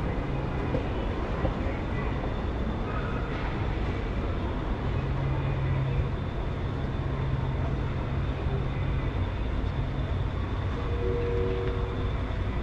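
Steady low rumble and hum of a running vehicle, with a brief higher tone about eleven seconds in.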